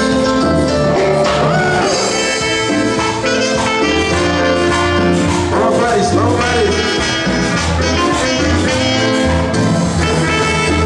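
Loud Latin dance music with brass and singing.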